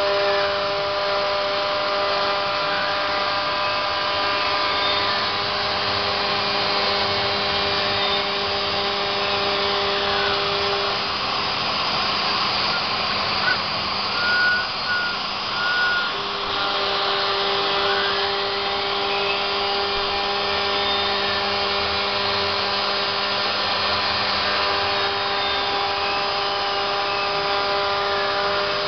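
CNC router milling PVC: the spindle motor runs with a steady whine over the noise of the cut. The axis stepper motors rise and fall in pitch every few seconds as the tool moves. About halfway through the steady tones drop away for a few seconds, with a few short chirps.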